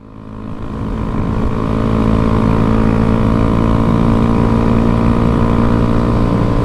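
A small single-cylinder motorcycle engine, a Honda Grom's 125 cc air-cooled single, running at a steady speed. It fades in over the first couple of seconds, then holds an even pitch.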